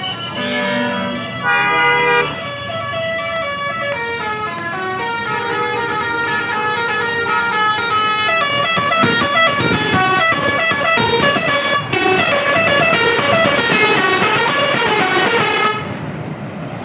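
Tour-bus telolet horns playing quick melodic tunes, the pitch stepping from note to note several times a second. About eight seconds in, the notes thicken and overlap, then stop suddenly near the end.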